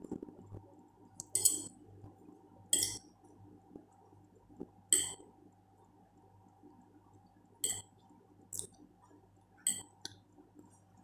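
Metal fork clinking against a white ceramic plate while scooping rice noodles: about six sharp, ringing clinks at irregular intervals over a faint steady hum.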